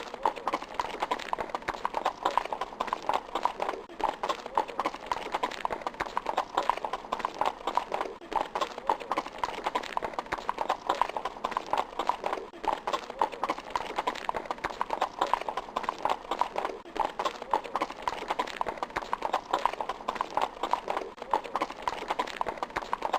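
Sound effect of horses galloping, a dense, continuous clatter of hoofbeats.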